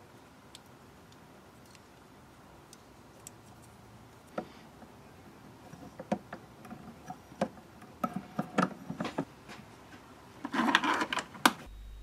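Hand threading with a die in a handheld die stock on an EMCO Unimat SL lathe, the chuck turned by hand: irregular light metallic clicks and ticks that come more often after about four seconds, with a short rattling scrape near the end.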